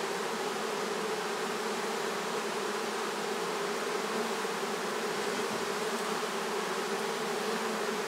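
A honey bee swarm buzzing: a steady, even hum from thousands of bees clustered together.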